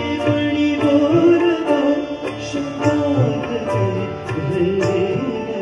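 A male voice sings a Marathi song live into a microphone, accompanied by a harmonium's held notes and tabla strokes.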